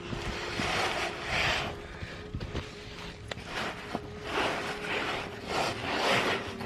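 Irregular rustling and scraping in several bursts of a second or so, the sound of someone moving about, with a faint steady hum underneath.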